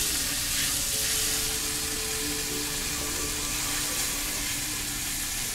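Steady sizzling on a flat-top steel griddle where tortillas are heating: an even, high hiss.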